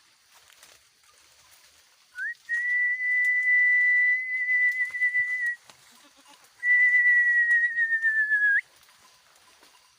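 A person whistling long, steady high notes: a short rising note about two seconds in, then one held for about three seconds, then another of about two seconds that sags slightly in pitch and flicks up at the end.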